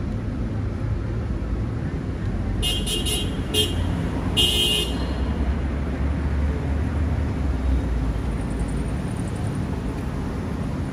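Street traffic: a steady low rumble of passing vehicles, with several short car-horn toots between about two and a half and five seconds in.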